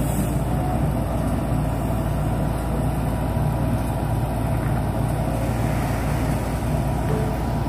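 Grab dredger's crane engine running steadily, a constant low drone.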